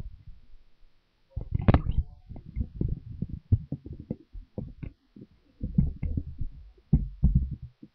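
Handling noise on a handheld microphone: irregular low thumps, bumps and rubbing as it is moved and gripped, with a few sharper knocks, the loudest about a second and a half in and again near the end.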